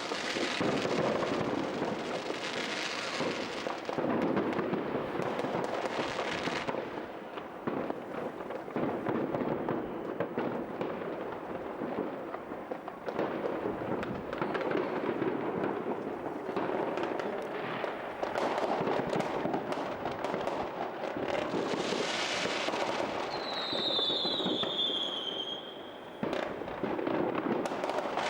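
Fireworks display: dense, continuous crackling and bangs that swell and ebb, with a falling whistle near the end.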